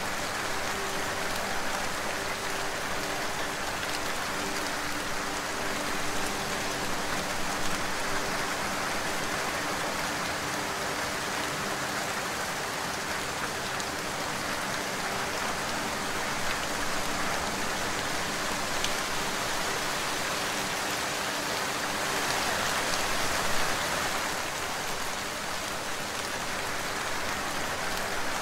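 Steady rain, an even hiss of drops falling on a surface, with faint low steady tones underneath.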